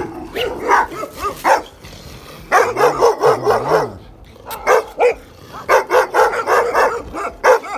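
Dogs barking aggressively in repeated rapid bursts with short pauses between, as they attack: protective dogs guarding their puppies.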